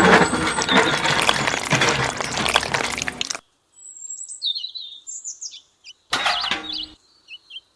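A loud rushing noise for about three and a half seconds cuts off suddenly. Small birds then chirp in short, scattered high calls, broken once by another brief burst of noise.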